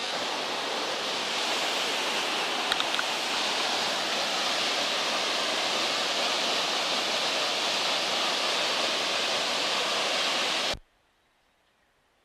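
Waterfall plunging into a rock pool: a steady, loud rush of falling water that cuts off abruptly near the end.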